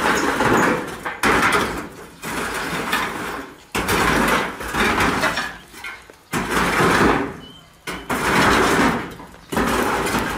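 Steel pipe spit scraping metal on metal as it is turned in a steel drum roaster, in repeated grinding strokes about every one and a half seconds.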